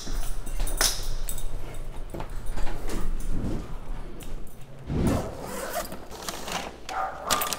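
Handling of a fabric insulated food-delivery bag: fabric rubbing and a zipper being run, with a dull thump about five seconds in as the bag is set down on carpet.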